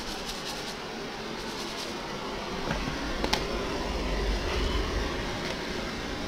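Steady background noise and low rumble of a handheld camera being moved about, with a couple of light knocks about three seconds in as a red plastic bowl is set down on a tiled floor.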